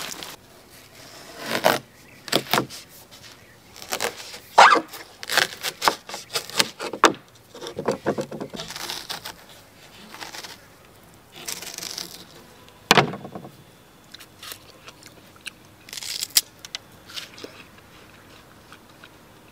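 A knife cutting a watermelon on a wooden table, in separate short bursts of crunching, cracking and scraping with pauses between. A sharp knock stands out about two-thirds of the way through.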